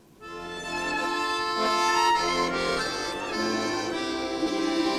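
Instrumental opening of a Ukrainian folk song: sustained chords and melody starting about a quarter second in.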